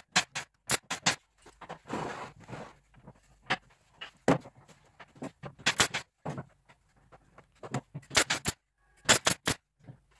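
A quick, irregular run of sharp knocks and clicks, with a short scraping rustle about two seconds in.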